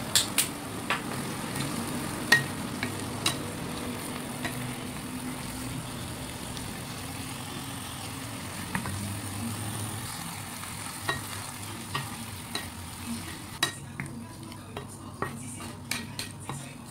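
Wooden spatula stirring broccoli and tuna in a sizzling creamy sauce in a nonstick frying pan, with a steady sizzle and scattered sharp knocks and scrapes of the spatula against the pan.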